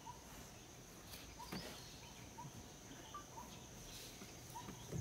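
Faint forest ambience: a steady high-pitched insect drone, with short chirping calls recurring about once a second and a few faint clicks.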